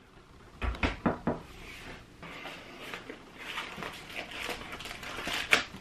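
A few knocks as the circular saw is set down on a wooden workbench, then rustling and crinkling as the cardboard sleeve and plastic bag holding a new 4½-inch saw blade are handled and opened.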